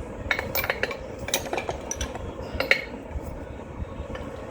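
Loose steel sockets and hand tools clinking and rattling against each other as they are picked through, with a run of sharp metallic clinks over the first three seconds.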